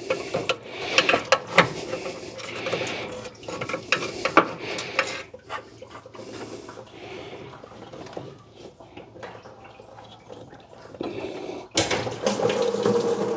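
Sharp metal clinks and knocks of hands and tools working the lower radiator hose loose, over running, splashing coolant. About 12 seconds in, a sudden steady gush starts: with the lower hose off, the radiator's coolant pours out into a bucket.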